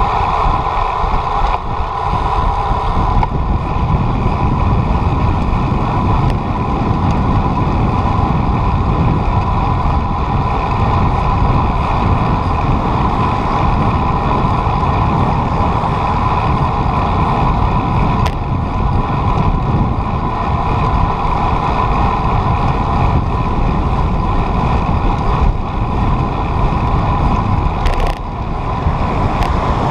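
Steady engine drone and wind rush of a vehicle on the move, running evenly with a short dip in level near the end.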